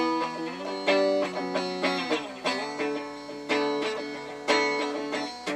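Guitar playing chords, a new chord struck about once a second, with a brief sliding change in pitch a little over two seconds in.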